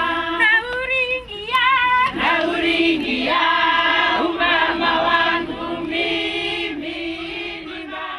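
A choir of women's voices singing, with a steady low note held beneath the melody; the singing fades out near the end.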